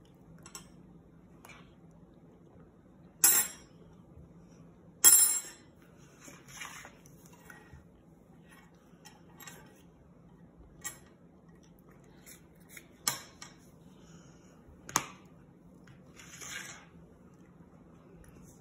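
Plastic utensils and a plastic plate and cup clacking on a hard countertop while a child eats: scattered sharp clacks, the loudest two about three and five seconds in and two more around thirteen and fifteen seconds.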